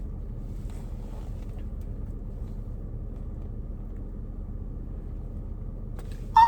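Steady low rumble inside a parked car's cabin.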